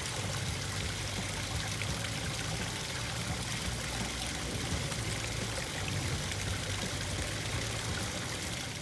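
Water at a garden pond's stone spillway, running and trickling steadily.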